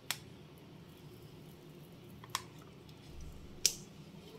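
Three brief, sharp clicks of kitchenware a second or so apart over a faint, steady low hum.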